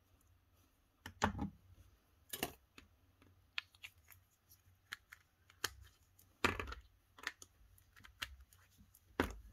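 Small plastic gel-polish bottle and jar being handled on a tabletop: a scattering of separate clicks and light knocks as a screw cap goes onto the bottle and a jar is picked up and turned in the hands.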